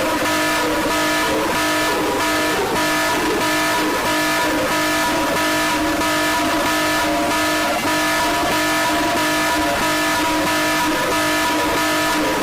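Mock emergency alert alarm: a loud, steady chord of buzzing tones held throughout, pulsed by regular bursts of hiss about twice a second.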